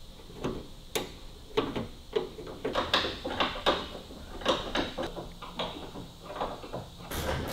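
Metal spanners clinking and tapping on a fuel line fitting under a car as it is tightened: irregular light clicks and knocks.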